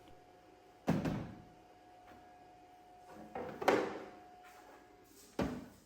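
Hard plastic clunks from a DeWalt power-tool battery pack being handled and set into a charger box: three separate knocks, the middle one a double knock.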